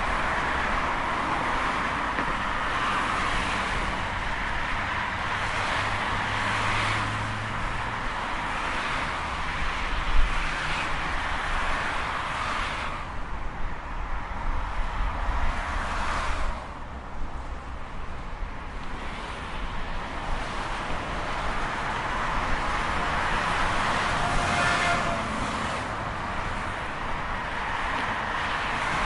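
Highway traffic: a continuous rush of tyre and engine noise from passing vehicles, swelling and fading as they go by. It thins into a duller lull partway through, with a single sharp knock about a third of the way in.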